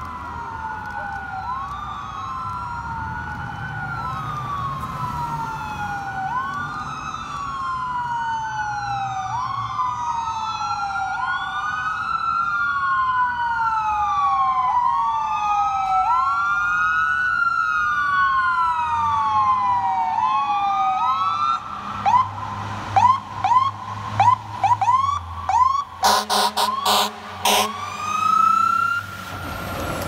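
Two fire trucks' electronic sirens wailing, the slow rising and falling sweeps of the two overlapping. About two-thirds in they switch to a fast yelp. Near the end come several short, loud air horn blasts over the diesel engine rumble as the trucks pass.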